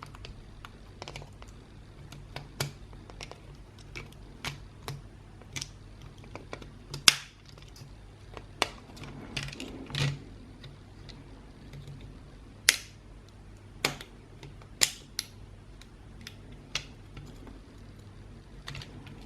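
Irregular small clicks and taps of an Xbox One controller's plastic parts being handled and prised apart, with a few sharper snaps, the loudest about seven seconds in and a cluster around thirteen to fifteen seconds in.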